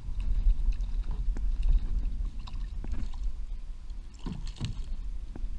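A small hooked fish splashing at the surface as it is drawn alongside a kayak and lifted out on the line, with a few short splashes about four seconds in, over a steady low rumble.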